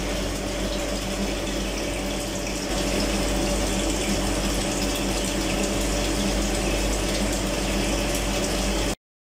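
Cleaning solution pouring and splashing from return hoses into a plastic CIP tank over the steady hum of the recirculation pump, as the caustic (alkaline) wash starts circulating through the RO membranes. It gets slightly louder about three seconds in and cuts off abruptly near the end.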